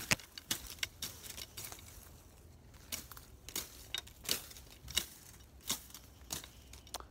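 Dry twigs and brush snapping and crackling as someone forces a way through undergrowth: irregular sharp snaps, several a second at times.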